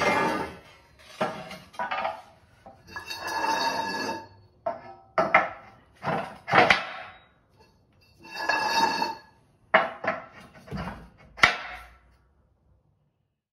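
Steel parts of a Rogue Slice Sled clanking and scraping as the folded sled is opened and its removable posts are fitted: two drawn-out metallic scrapes with a ringing tone, and several sharp clanks between and after them.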